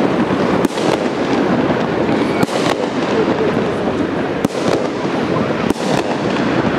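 Fireworks salute bursting overhead: sharp bangs every second or two over a dense, steady noise.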